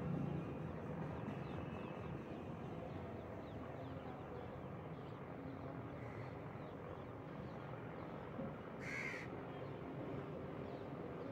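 Open-air rooftop ambience: a steady low background hum with a crow cawing, once faintly about six seconds in and once more loudly about nine seconds in.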